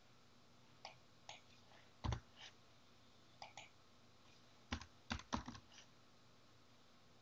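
Computer keyboard keystrokes: scattered single key presses, then a quicker run of several keys about five seconds in, as a value is typed into a field.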